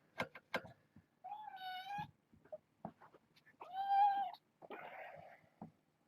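A young kitten meowing twice, two drawn-out high mews about two seconds apart, with a few light taps and rustles around them.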